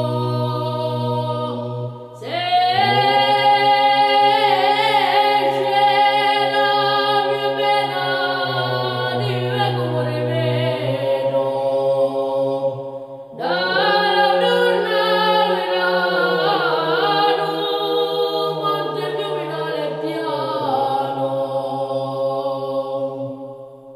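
Unaccompanied choral chant: several voices singing together over a low held note. New phrases begin about two seconds in and again about halfway through.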